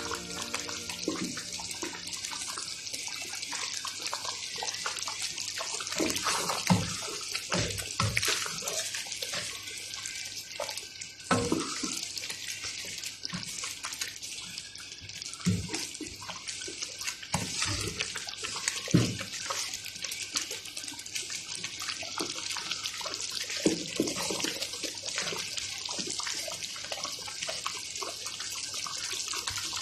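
Creamy chicken and mushroom sauce simmering in a pan with a steady hiss, broken by about ten short low thuds as a wooden spoon stirs through it.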